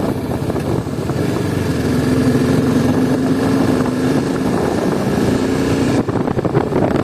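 Motorcycle engine running at a steady, high pitch while the bike is ridden at speed, with wind rushing over the microphone.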